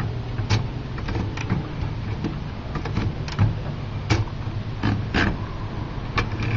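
L.C. Smith manual typewriter clicking irregularly as its keys, levers and carriage are worked, the sharp clicks coming about two a second over a steady low hum.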